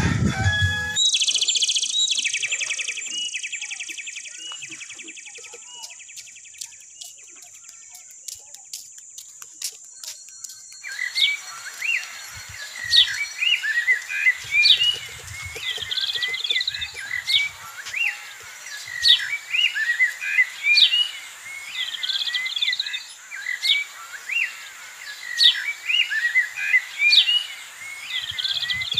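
Birds chirping: repeated short, sharp calls and quick upward-sweeping notes that start abruptly about ten seconds in and keep going, over a steady thin high tone. Before them, a rapid high pulsing sound fades away over the first ten seconds.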